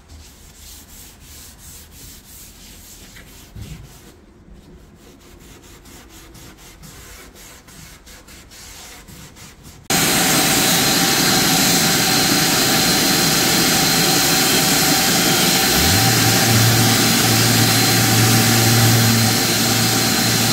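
Faint rubbing and handling as a gloved hand wipes down a wooden hutch. About halfway through, a handheld electric sander starts suddenly and runs loud and steady against a curved wooden drawer front, with a low hum joining a few seconds before the end.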